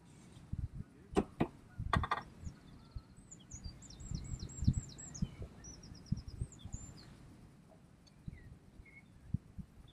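A few sharp knocks in the first two seconds as a carbon fishing pole is handled and shipped back. A songbird then sings a run of quick slurred notes followed by a fast trill, over a low irregular rumble.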